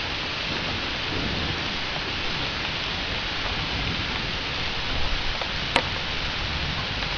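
Steady heavy rain falling, with a low rumble of thunder underneath. One sharp tick sounds about three-quarters of the way through.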